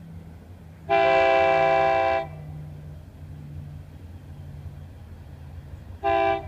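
Diesel freight locomotive's multi-chime air horn sounding from an approaching train: one long chord blast of about a second and a half, then a short blast about six seconds in, over a low steady rumble.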